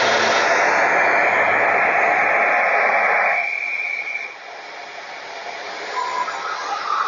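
Shaper Origin handheld CNC router running with its dust-extraction vacuum hose attached: a loud, steady rushing whine of motor and suction, which eases to a quieter steady run about three and a half seconds in.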